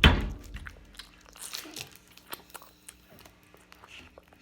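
A person eating close to the microphone: a loud bite right at the start, then quieter chewing with scattered small mouth clicks.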